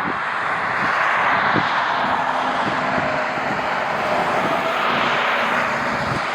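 Jet airliner's engines, a steady loud rush with a faint tone running through it from about two seconds in, while gusts of wind buffet the microphone.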